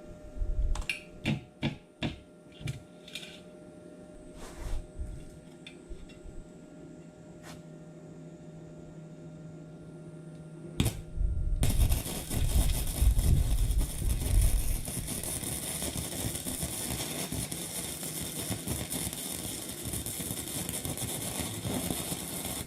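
EIANLON gasless flux-core semi-automatic welder: a few knocks and clicks, then about eleven seconds in the arc strikes and crackles steadily for the rest of the time.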